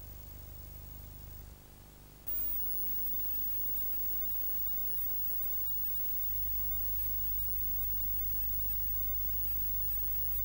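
Steady low electrical hum and hiss from a videotape transfer, with no programme sound. There is a small click about two seconds in, after which the hiss gets louder, and the low hum grows louder about six seconds in.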